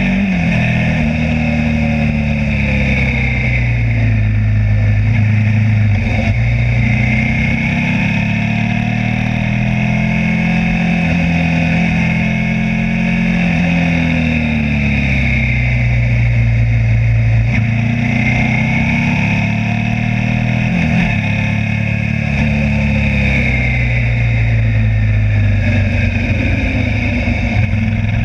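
Suzuki SV V-twin motorcycle engine under way on a winding descent, its revs climbing and dropping again several times as it pulls out of bends and rolls off into the next. A steady rush of wind runs underneath.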